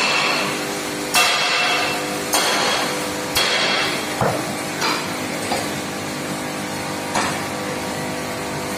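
Sledgehammer blows on the metal axle box of an ICF coach wheelset, which houses its spherical roller bearing: three heavy ringing metallic strikes about a second apart, then several lighter knocks, the last about seven seconds in, over a steady hum.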